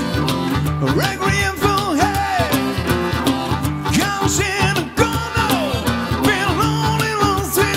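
Acoustic blues-rock band playing: strummed acoustic guitar and a steady cajon beat under a wailing harmonica line with bent, wavering notes.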